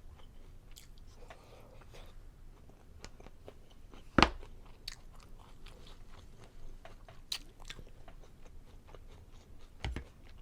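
Close-miked chewing and mouth sounds of a person eating, with scattered small clicks and one sharp click about four seconds in.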